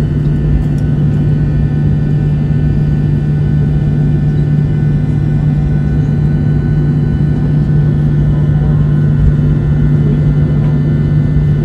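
Airliner cabin noise while taxiing: the steady drone of the jet engines heard inside the cabin, a strong constant low hum with several faint steady higher tones above it.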